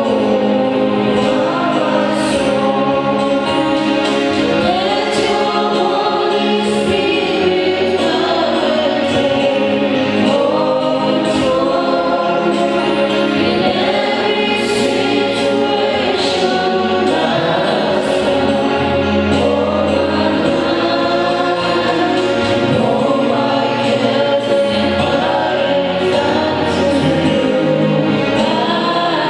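Gospel worship song: a group of voices singing over steady sustained instrumental chords.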